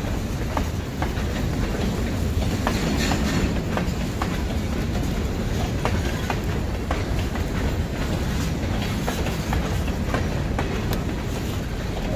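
Freight train of covered hopper cars rolling past: a steady rumble with the wheels clicking irregularly over rail joints.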